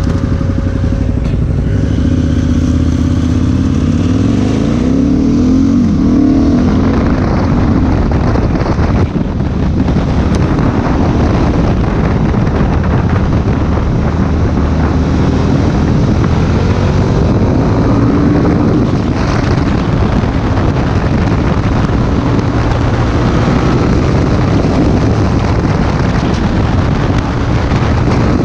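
Motorcycle engine idling, then rising in pitch as the bike pulls away over the first few seconds. It then runs at road speed with wind rushing over the microphone.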